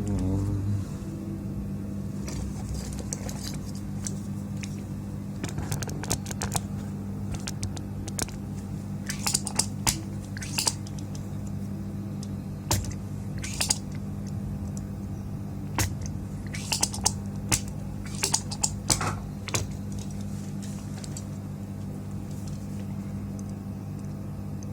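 Scattered light clicks and taps of small tools and parts being handled on an electronics repair bench, over a steady low electrical hum.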